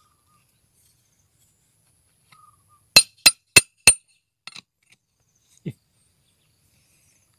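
Four quick, bright ringing clinks, like metal or glass being struck, about three a second and about three seconds in, then a few faint ticks and a short low thump.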